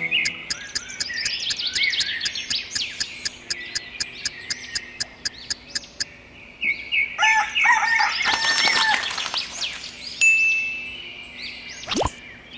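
Birds chirping in fast repeated calls, then a rooster crowing about eight seconds in. A quick falling sweep near the end.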